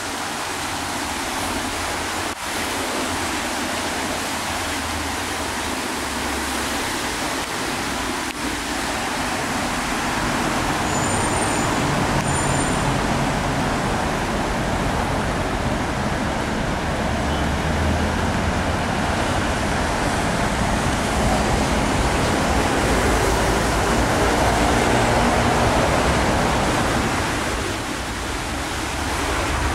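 Steady city road-traffic noise, a continuous rush of passing cars and heavier vehicles that grows louder through the middle and eases off near the end. Two brief faint high chirps sound about twelve seconds in.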